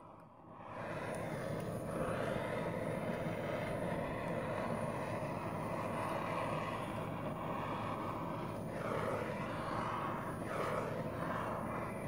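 Handheld gas torch burning with a steady rushing hiss as its flame is passed over a wet acrylic pour; it comes up about a second in and holds steady.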